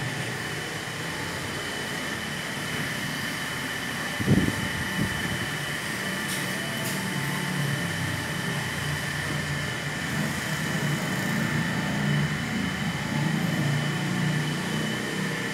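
Steady mechanical hum of running machinery, with two high steady whining tones over it, and a single thump about four seconds in.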